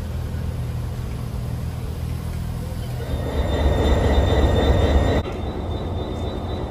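Train sounds across three cuts: Cravens coaches rolling slowly past a platform, then a louder low rumble of a diesel-hauled train with a faint high squeal for about two seconds. After a sudden cut, a GM Class 201 diesel locomotive runs at a station with a thin high whine.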